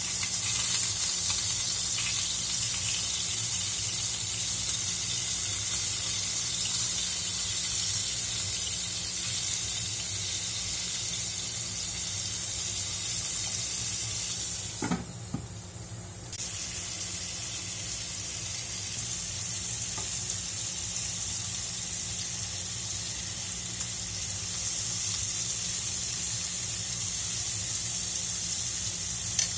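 Chicken shashlik frying in oil in a frying pan, sizzling steadily; the sizzle drops away briefly about halfway through, then carries on.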